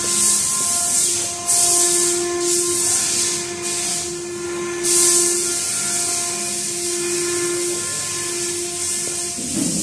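A steady machine hum with overtones, and a high hiss that comes and goes in stretches of about a second.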